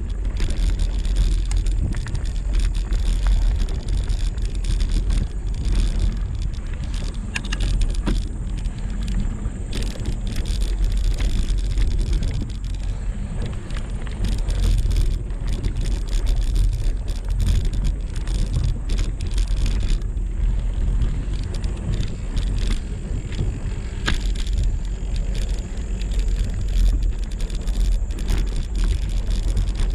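Mountain bike rolling over a dirt trail, heard from a camera on the bike or rider: a steady low rumble of wind and tyre noise on the microphone, with scattered rattles and clicks from the bike.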